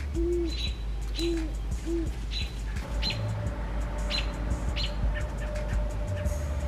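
A large eared owl hooting three short, low hoots in the first two seconds, while small birds chirp high and repeatedly throughout. A steady low hum runs underneath, and a steady tone joins it about three seconds in.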